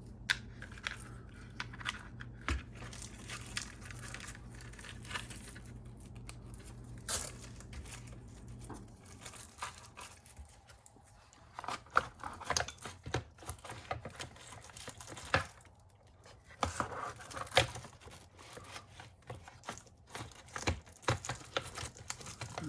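Hands fitting plastic parts and wiring back into an RC truck chassis: scattered clicks, rustles and scrapes, with a low steady hum that stops about nine seconds in.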